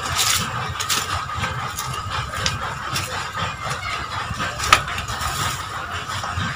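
Dry leaves and twigs burning in a brick stove, crackling with scattered clicks as a stick pokes the fire, and one sharp snap or knock about four and a half seconds in. Under it runs a low steady rumble.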